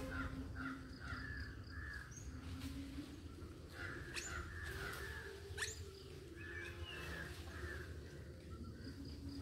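Harsh animal calls, short and repeated in three bursts of several calls each, over a faint steady low tone.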